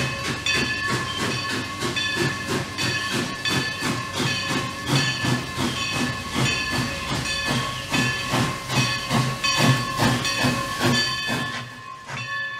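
Steam locomotive working slowly, its exhaust chuffing at about three beats a second with steam hiss, over a steady high whine. The beats grow fainter near the end.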